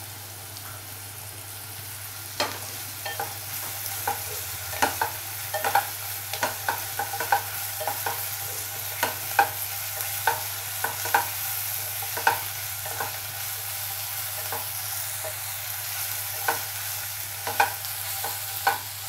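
Chopped onion and ginger-garlic paste sizzling as they are sautéed in hot oil, stirred with a wooden spatula. The spatula's knocks and scrapes against the pot come as frequent sharp clicks from about two seconds in, over a steady sizzle.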